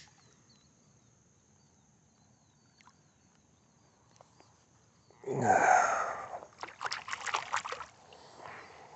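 Faint chirping, then about five seconds in a loud burst of water splashing and sloshing that lasts a couple of seconds.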